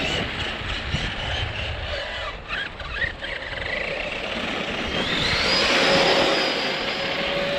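Large-scale electric RC car's brushless motor, a Hobbywing 2250kv, whining under a steady noisy rumble. A few short pitch sweeps come in the middle; then about five seconds in the whine climbs and holds high as the car runs at speed, easing near the end.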